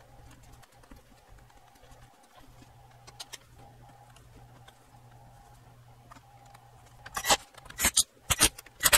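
Handling of a Sonos Playbar's end-cap parts during reassembly: a few small clicks over a faint steady hum, then four loud, short scraping rubs in quick succession in the last two seconds as the trim and grille frame are fitted.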